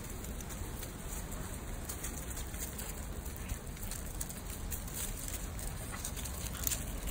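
Light scattered crackling of dogs' paws scuffing on gravel and dry leaf litter as they move about, over a steady low rumble.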